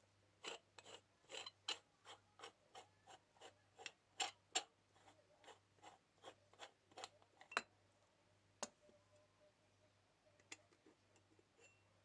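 Red aluminium stovetop moka pot being unscrewed by hand: a run of short scraping clicks from the threads, about two or three a second, thinning to a few scattered clicks after about eight seconds.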